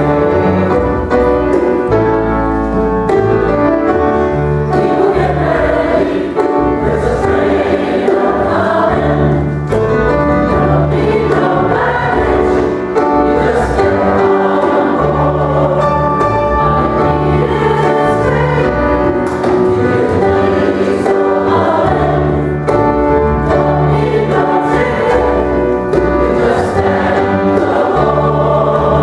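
Mixed choir singing a gospel song in harmony, accompanied by grand piano and upright bass.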